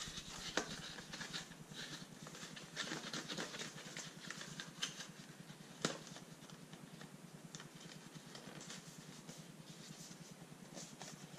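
Cardboard packaging rustling and scraping as a drone battery's box is slid out of its paper sleeve, with scattered sharp clicks of card, the loudest about six seconds in.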